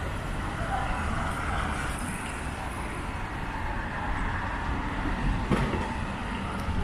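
Steady city street noise on a rainy night: a low rumble of passing vehicles over an even hiss, with one sharp knock about five and a half seconds in.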